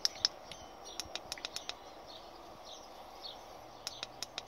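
Irregular sharp clicks of the fishfinder's front-panel buttons being pressed, several quick presses near the start and a few more near the end, as the sonar menu is opened.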